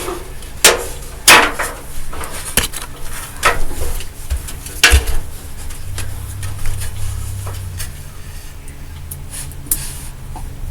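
Hard objects being handled and knocked together: a run of sharp knocks and clatters in the first five seconds or so, then quieter handling over a low hum.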